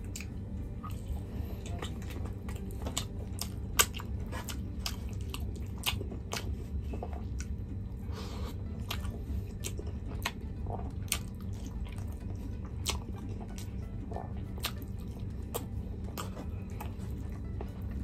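Close-up eating sounds of a person chewing chicken and rice, with short sharp mouth clicks scattered irregularly through the chewing, over a steady low background hum.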